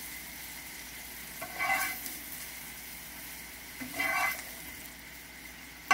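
Hot oil sizzling steadily in a skillet of seared Brussels sprouts, with the burner just turned off. A spatula scrapes across the pan twice as the sprouts are scooped out.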